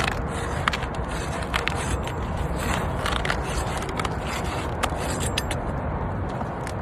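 Asphalt shingles being pried and scraped loose to break their sealant bond, with irregular sharp clicks and scrapes over a steady low rumble.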